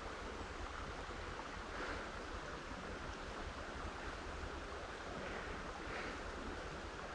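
Steady rush of flowing creek water, with a low rumble of wind on the microphone.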